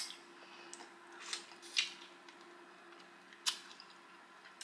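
Close-up eating sounds: a person chewing and sucking seafood, with a handful of short, wet mouth smacks and clicks, the sharpest about three and a half seconds in.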